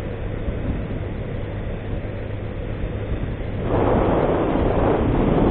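Honda CG 160 Fan's single-cylinder four-stroke engine running steadily at road speed under rushing wind noise. A little over halfway through, a louder rushing noise swells and holds.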